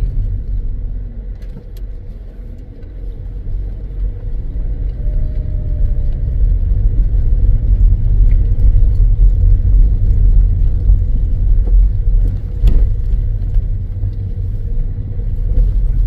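Steady low rumble of a car on the move, engine and tyre noise on the road, easing briefly about two seconds in and then holding steady.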